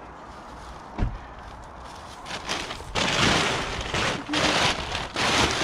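Greenhouse plastic film and tie-down rope being handled and pulled: a single knock about a second in, then several loud bursts of rustling and scraping.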